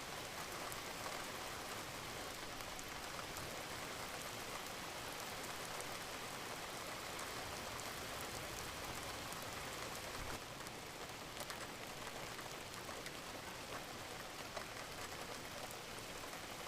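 Steady rain falling, an even hiss with scattered drop ticks, easing slightly about ten seconds in.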